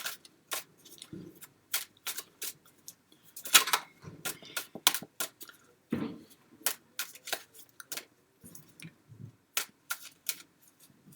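Tarot cards being handled, giving a run of sharp, irregular clicks and snaps, a few a second.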